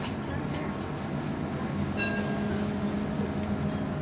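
Cabin sound of a Gothenburg M31 tram starting to pull away from a stop. About halfway through, a steady electric motor hum comes in, together with a brief high tone, over the car's general rumble.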